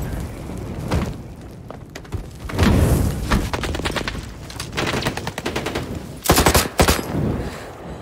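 Automatic assault-rifle fire in rapid bursts from several guns, with single shots in between; the loudest burst comes about six seconds in.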